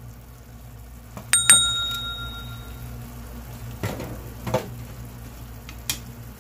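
A single bright bell-like ding about a second and a half in, ringing out for about a second, over a steady low hum. A few soft knocks follow later.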